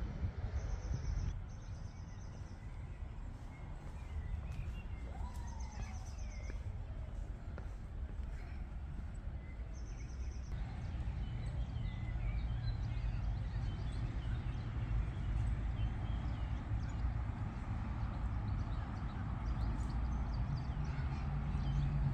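Outdoor ambience of songbirds chirping and whistling in short scattered phrases, with a few brief high trills in the first half, over a steady low rumble that swells slightly near the end.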